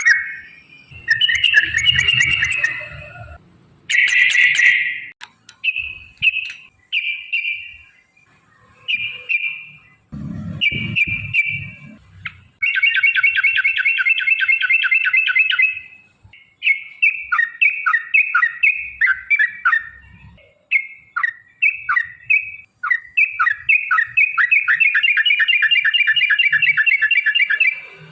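Yellow-vented bulbul (trucukan) song: bursts of bubbly chattering notes, broken by two long, fast rattling trills, one about halfway through and another near the end.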